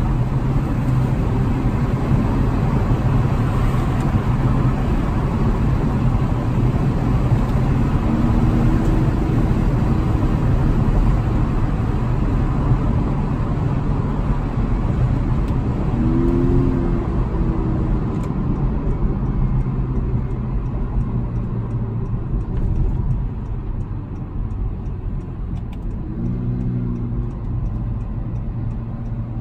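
Honda Accord's 2.0-litre turbocharged four-cylinder engine and tyre noise heard from inside the cabin while driving, steady throughout. A brief pitched hum comes through three times.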